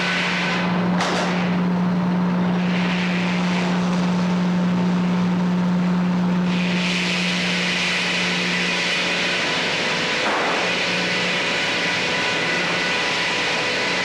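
Frick 00 sawmill machinery running with a steady engine drone and a low hum, overlaid by a hiss that grows brighter about six seconds in.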